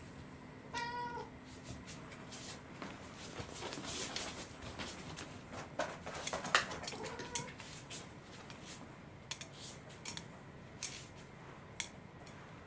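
A cat meowing, one short meow about a second in and a fainter one about seven seconds in. Between them come crackles and clicks from a clear plastic food tray being handled.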